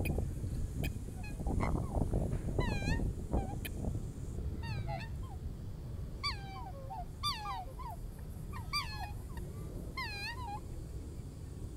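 Black swans calling: a run of short, swooping bugle-like honks, about six or seven, roughly one to one and a half seconds apart, over a steady low rumble.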